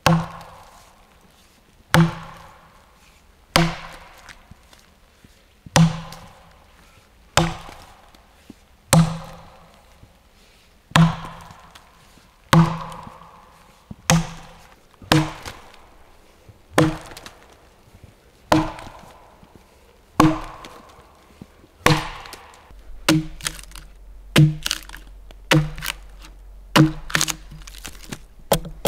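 Steel axe chopping into a large log, cutting scoring notches for hewing: single heavy strikes about every one and a half to two seconds, then quicker, lighter chops in the last quarter.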